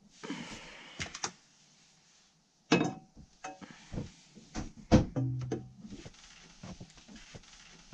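Knocks, thuds and clatter from hands working inside a sailboat's diesel engine compartment while the engine is stopped, with a short hiss at the start and two sharp thuds, about three seconds in and about five seconds in.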